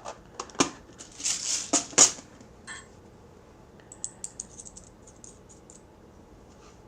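Small metal rivets and punches clicking and clinking as they are handled and sorted on the bench, with a short rustle. A few sharp clicks come in the first two seconds, then a quick run of light ticks a few seconds later.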